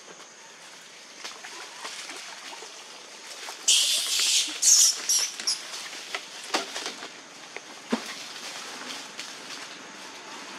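Plastic bag crinkling loudly in a run of hissy bursts from about four to five and a half seconds in. Around it are lighter rustles and small clicks in dry leaf litter.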